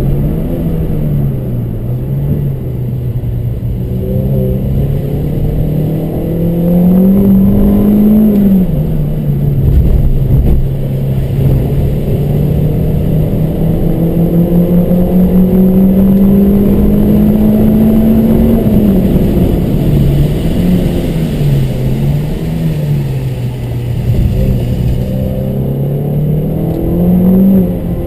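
Car engine driven hard on a race circuit: revs climb, drop back with gear changes and braking, and climb again. There is a long climb in the middle, a sharp fall after it, then several quick rises and falls.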